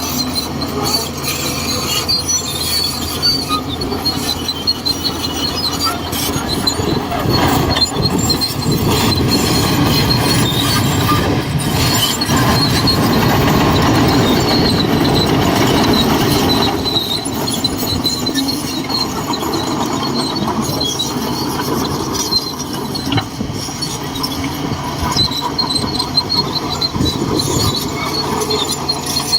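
Shantui DH17C2 crawler bulldozer working, its diesel engine running steadily with a high-pitched squeal from the steel tracks that comes and goes; the machine grows louder for several seconds in the middle, as under heavier load.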